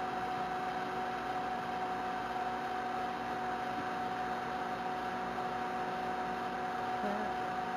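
Microwave oven running on its popcorn setting: a steady hum with a fan-like noise under it, a bag of popcorn heating inside before the popping starts.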